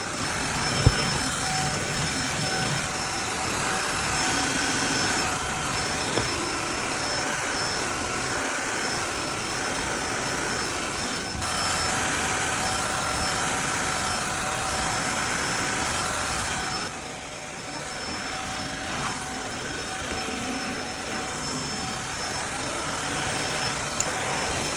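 Cordless wet-dry vacuum mop running steadily, its motor giving a constant whine over a rush of suction, with a sharp click about a second in and a brief drop in level about 17 seconds in.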